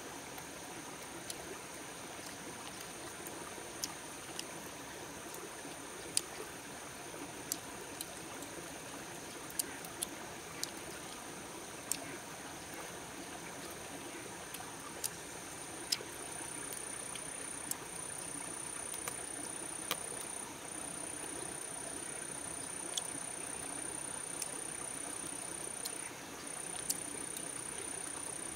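Stream water running steadily, with a high, continuous insect trill that gets louder about halfway through and breaks off briefly a couple of times. Scattered sharp clicks are heard throughout.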